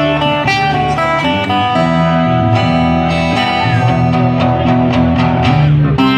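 Instrumental break of a sertanejo song, with a bass guitar playing steady low notes under guitars and the rest of the band, no singing.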